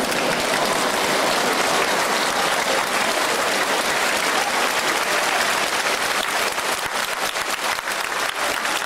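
Audience applauding: dense, steady clapping. In the last few seconds separate claps stand out more as it thins.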